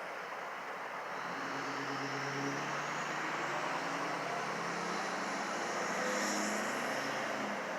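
Norfolk Southern local freight train moving through a grade crossing: a steady rumble of the train rolling, with a faint low diesel engine hum.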